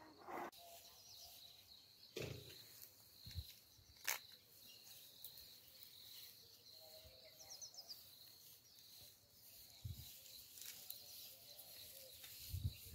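Near silence: faint outdoor ambience with a steady high insect tone, a few faint chirps, and scattered soft thumps, with a sharp click about four seconds in and a cluster of low thumps near the end.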